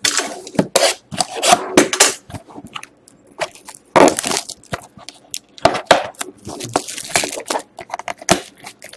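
Clear plastic shrink wrap being torn and crinkled off a cardboard trading-card box, in quick irregular crackles and snaps, the sharpest about four seconds in.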